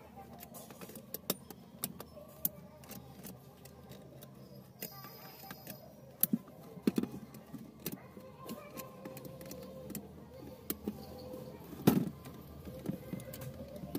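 Small clicks, taps and rattles of kit-kat fuse units and wire being handled on a switch board plate, with one louder click about twelve seconds in.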